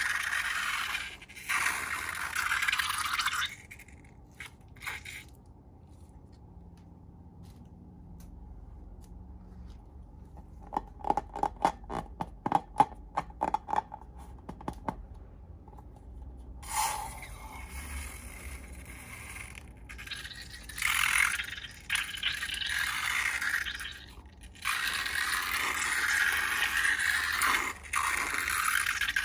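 Scraping and stirring of slime-making materials in several scratchy bouts, with a run of quick sharp clicks in the middle.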